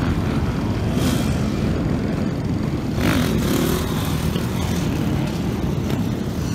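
A group of dirt bikes and quad ATVs running and revving together, a dense engine noise with one rev rising about three seconds in.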